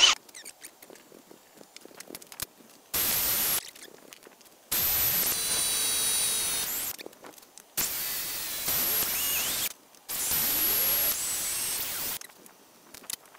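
Kobalt 24V cordless drill drilling holes through a metal bracket, four runs of the motor with a steady whine, the first short and the others about two seconds each, with light clicks of handling between them.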